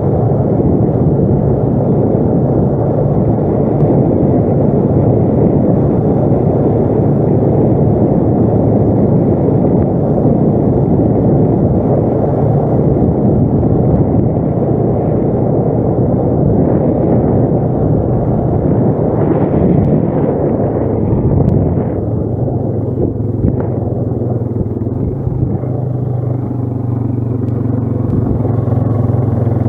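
ATV engine running while riding, a steady low drone mixed with a heavy rumble. About three-quarters of the way through the rumble eases and the engine settles into a smoother, steadier hum.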